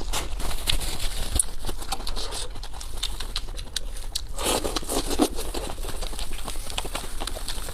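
Close-miked eating sounds: chewing with many short crackling clicks, and a louder rustling, tearing stretch about four and a half seconds in lasting under a second.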